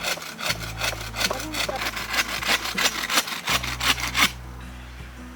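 Hand saw cutting through wood in quick, even back-and-forth strokes, about five a second, stopping a little over four seconds in.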